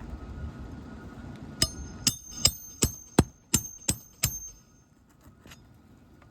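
Hammer driving roofing nails through a replacement asphalt shingle into the roof deck: eight quick, evenly spaced strikes with a bright metallic ring, about three a second.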